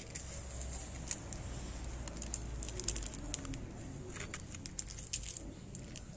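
A cat eating dry kibble: irregular sharp crunches and clicks as it chews, over a low steady rumble.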